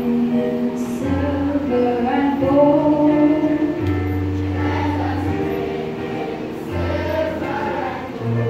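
Children's choir singing a Christmas song in unison, accompanied by an electric keyboard. Low bass notes are held and change every second or two under the voices.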